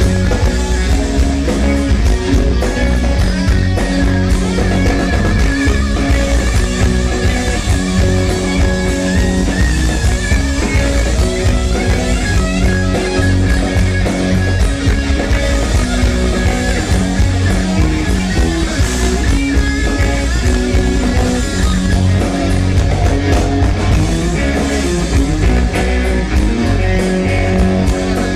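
Rock band playing live and loud on electric guitars, amplified through stage amplifiers.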